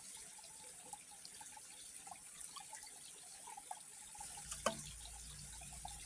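Faint trickling and lapping of shallow water around a wading angler, with small drips and ticks. A short falling squeak comes about three-quarters of the way through, and a low rumble sets in near the end.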